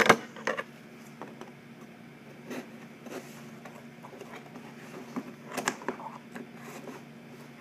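Faint rustling and scattered small clicks of hands working at the band around a cardboard shipping box, with one sharper click a little over halfway through.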